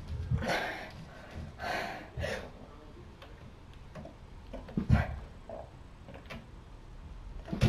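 Pull-ups on a doorway pull-up bar: a few short, strained breaths in the first couple of seconds and light clicks from the bar. A low thump about five seconds in is the loudest sound, with another near the end.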